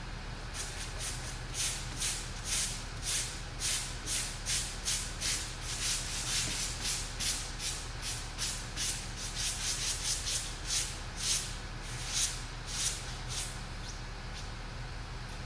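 Gloved hands brushing back and forth over the bare black top of a poker table, a quick rhythmic rubbing of about two strokes a second that slows and stops about 13 seconds in.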